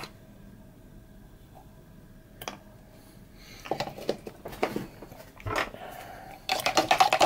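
A few light clicks and taps of a plastic cup being handled. About six and a half seconds in comes a loud, fast rattling as a pre-workout drink is mixed in the plastic cup.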